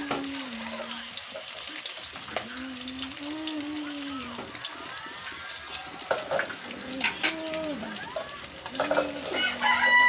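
Eggs sizzling in hot oil in a wok, a steady hiss, with a few sharp clinks of a utensil about six to nine seconds in. A voice hums over it.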